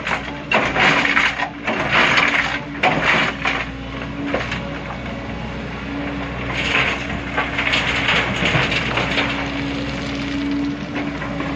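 Rocks scraping and clattering in irregular bursts as boulders are loaded by heavy machinery, over a steady diesel engine hum. The bursts are busiest in the first few seconds and again past the middle.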